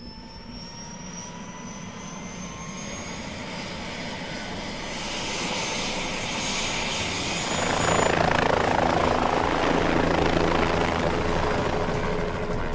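Helicopter turbine engine starting up: a high whine rises steadily in pitch as it spools up while the rotor noise builds, growing louder until it settles into full, steady running about eight seconds in.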